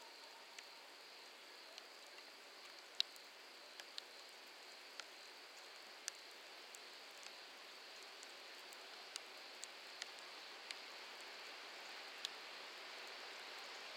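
Faint, steady hiss of a quiet railway station with sharp light ticks scattered through it. The hiss swells slowly toward the end as a distant train draws nearer.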